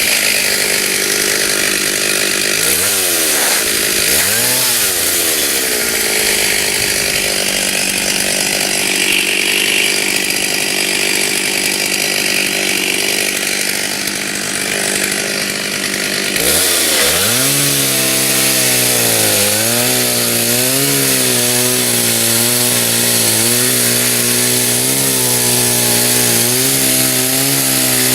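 Stihl two-stroke chainsaw cutting into the trunk of a dead white oak. The engine runs at high revs, dips and picks up twice in the first few seconds, then about halfway through drops and climbs back to a lower, wavering pitch as it works in the cut.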